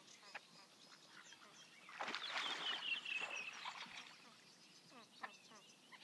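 Great crested grebes calling: a string of short, high, falling piping notes, typical of a juvenile begging from its parent, with a louder drawn-out falling trill about two seconds in.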